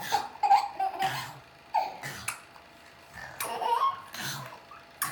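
A baby laughing and giggling in several short bursts with brief pauses between them.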